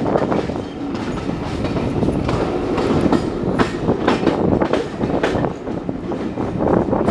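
Passenger coach wheels clattering over rail joints and pointwork, an irregular run of sharp clicks over a steady rolling rumble, as the train moves through Pickering station tracks.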